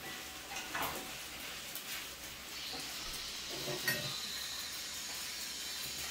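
Food sizzling as it fries in a pan, stirred and scraped with a wooden spatula, with a few sharp clinks of utensil on pan about a second in and near the middle. The sizzle grows steadier and louder after the first half.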